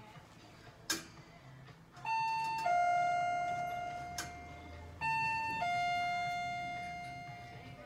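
Electronic two-tone doorbell-style chime sounding twice, a higher note dropping to a lower one, each note ringing on and slowly fading. A sharp click comes about a second in.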